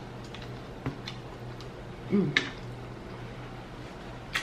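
Close-miked chewing of a mouthful of burger bun: a few scattered wet mouth clicks, the sharpest about two and a half seconds in, with a short hummed sound just before it.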